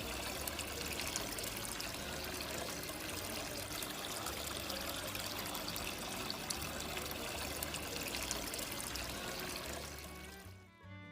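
Water trickling and splashing steadily in a small indoor tabletop waterfall fountain. The sound fades out near the end as music comes in.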